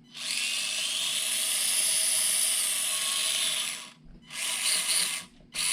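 Axial SCX24 Deadbolt micro crawler's electric motor and gears whining under throttle in three bursts: a long one of about three and a half seconds whose pitch rises and then holds, then two short ones. This is a test run showing the electronics still work after waterproofing.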